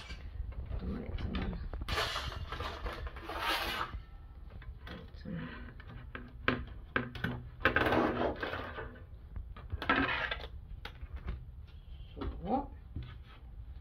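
Metal baking gear being handled: a stainless steel cake ring, a wire cooling rack and a thin metal cake-lifter plate clinking and scraping, in several short bursts.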